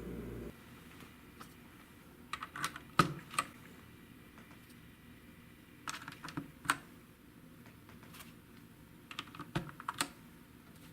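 Keys being pressed on a GMMK TKL mechanical keyboard: three short bursts of a few sharp keystroke clicks, a few seconds apart.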